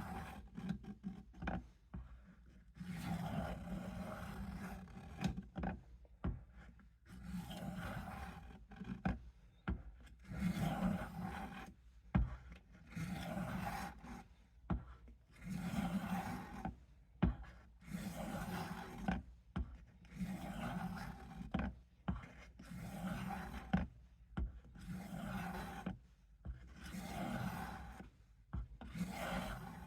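Knife blade drawn over and over across a fine-grit sharpening stone oiled with WD-40 on a Work Sharp guided sharpener. The blade is a Case USMC. Long rasping strokes come about every two and a half seconds, about a dozen in all.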